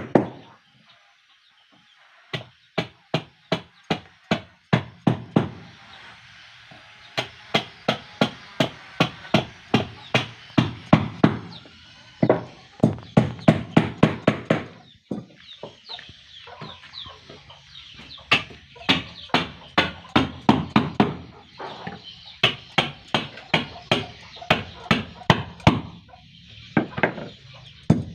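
Hammer blows on wood in steady runs of about three strikes a second, with short pauses between runs, from hand work on a wooden boat under construction.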